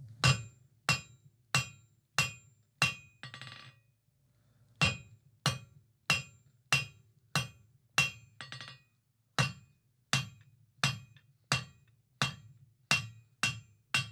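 Hand hammer striking a red-hot square steel bar on the edge of an anvil, drawing it down. The blows are steady, about two a second, with a short metallic ring after each and a pause of about a second partway through.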